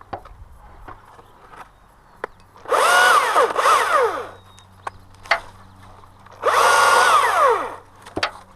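A power tool's motor revving briefly twice, each time a whine that spins up fast, holds, then falls in pitch as it winds down, with light knocks in between.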